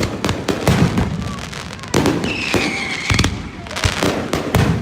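Fireworks going off: a dense run of sharp bangs and crackling pops, with a whistling firework that falls slightly in pitch about two seconds in.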